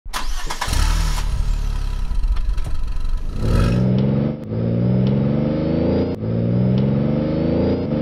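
A car engine accelerating hard, its pitch climbing again and again with short breaks between the climbs. The first few seconds are a louder, noisier rush before the rising engine pitch takes over.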